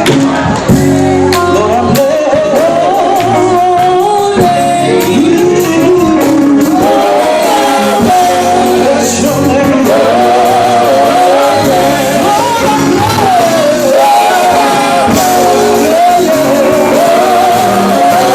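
Gospel group singing with instrumental backing, several voices carrying the melody together.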